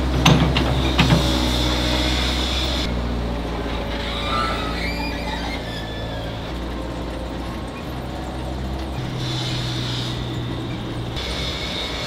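Foundry machinery running with a steady low hum, with a few sharp metal clanks in the first second or so as a steel skip bin tips its load into a hopper. A conveyor belt carrying the material runs under it.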